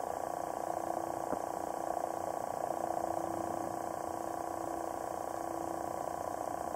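Steady underwater water noise with a faint steady hum, heard through a submerged camera, and one faint click about a second and a half in.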